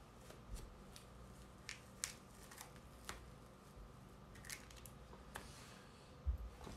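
Hair being cut with small scissors: a series of separate sharp snips, spaced irregularly about a second apart. A low bump comes near the end.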